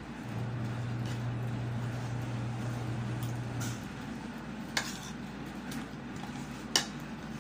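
A spoon clinking against a plate twice, about two seconds apart, while eating. A low steady hum runs under the first half and stops abruptly.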